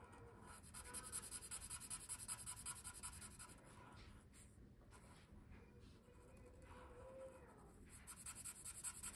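Felt-tip marker scratching on paper as a circle is coloured in with quick back-and-forth strokes, about six a second. Faint, in two spells: one circle filled in over the first few seconds, then the second starting near the end.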